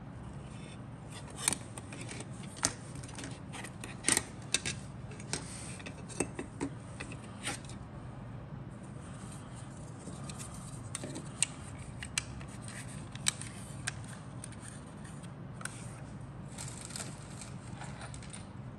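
Grey plastic parts of an Airfix 1/72 Dornier Do 217J-1 kit clicking and tapping against each other and the cutting mat as they are picked up, turned over and set down. The clicks are scattered and sharp, busiest in the first half, over a steady low hum.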